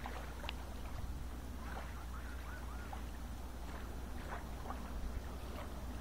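Lakeshore ambience: a steady low rumble of wind on the microphone over a soft wash of rippling water, with a few faint high chirps about two seconds in.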